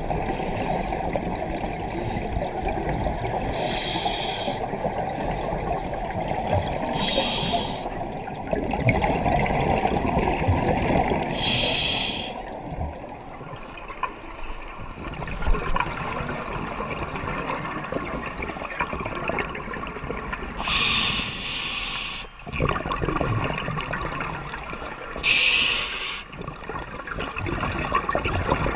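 Underwater sound of scuba diving: a steady muffled rush of water and rising bubbles, broken by five short hisses of breath through a scuba regulator.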